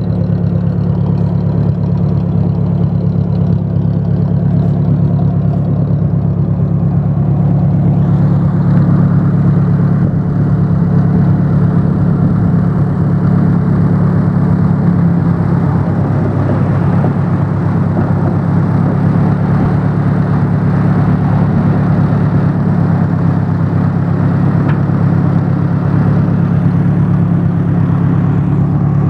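Ford 800 tractor's four-cylinder engine idling steadily.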